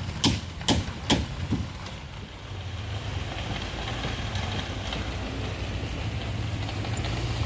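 A series of sharp knocks, about two a second, dying away within the first second and a half. Then a vehicle engine rumbles steadily.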